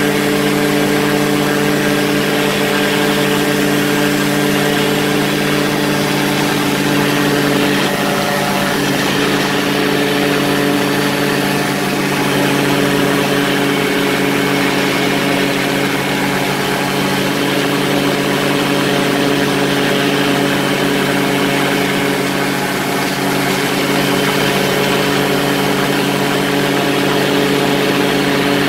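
Quicksilver ultralight's two-stroke engine and pusher propeller running steadily in flight, with wind rushing past the open airframe. The engine note shifts slightly about eight seconds in.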